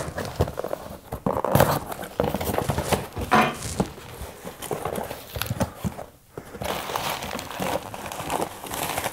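A small cardboard mailer box being slit open with a knife and unpacked: scraping and tearing of tape and cardboard, the lid flapping open, then a plastic bag crinkling near the end.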